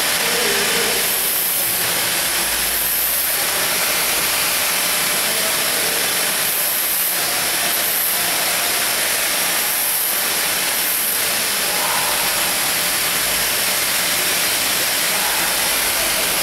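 Automatic round-bottle labeling machine running with its conveyor: a steady mechanical hiss, with faint recurring surges every second or so.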